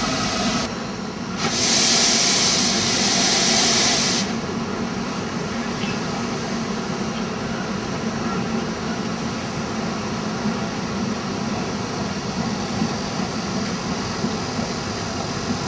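Chinese C2 class 0-8-0 narrow-gauge steam locomotive moving slowly, with a loud hiss of steam for about three seconds near the start, then a steady low running sound.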